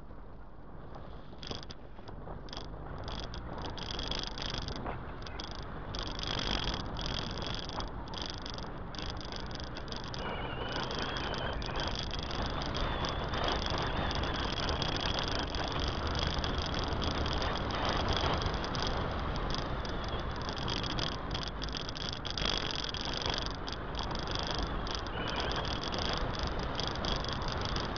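Wind buffeting and road noise on a car-mounted action camera's microphone as the car drives along, growing louder over the first several seconds and then holding steady.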